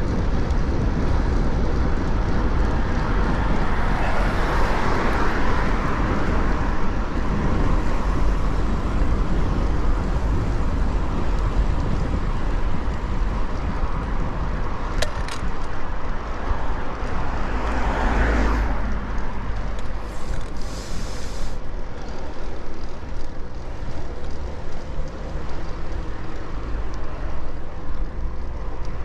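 Road traffic heard from a bicycle climbing a hill: cars pass close by, one about five seconds in and a louder one about eighteen seconds in, its sound swelling and falling away. A steady low rumble runs underneath, and there is a single sharp click about fifteen seconds in.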